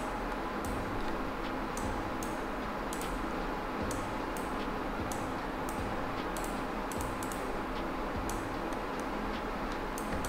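Scattered computer mouse and keyboard clicks, irregular, about one or two a second and some in quick pairs, over a steady hiss.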